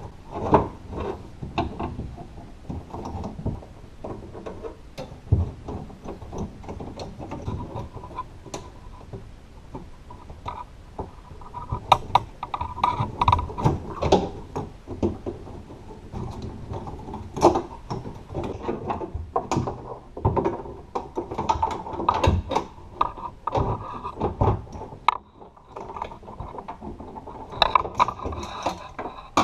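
Irregular clicks, knocks and rattles of a car's door latch and lock actuator assembly being handled inside the door while its plastic wiring connectors are unplugged.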